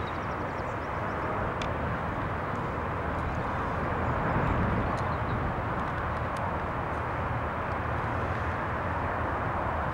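Steady outdoor background noise: a low rumble with a hiss over it, swelling slightly about halfway through, with a few faint ticks.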